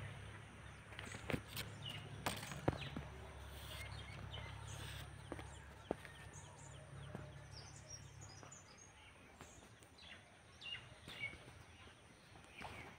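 Small birds chirping faintly and irregularly in the background. A low rumble underlies the first two thirds and then stops, and a few sharp clicks sound early on.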